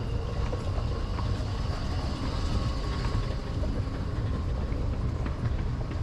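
Steady low rumble of a Dubai Metro train pulling into the station platform above, mixed with station ambience.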